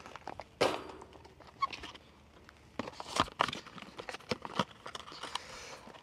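Tools and cardboard parts boxes being handled and packed away: scattered clicks, knocks and rustling, the sharpest knock about half a second in.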